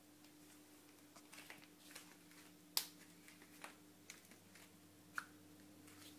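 Faint, scattered light clicks and taps, one sharper about three seconds in and another near the end, over a steady low hum.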